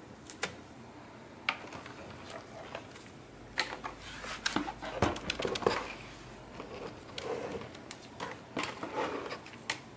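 Scattered clicks and knocks of a Toshiba Satellite P750 laptop's plastic casing and loosened screen being handled and turned over, with light scuffing. The knocks come thickest in the middle.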